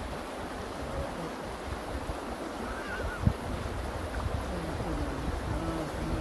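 Wind rumbling and buffeting on the microphone outdoors, with one short thump about three seconds in and faint distant voices in the second half.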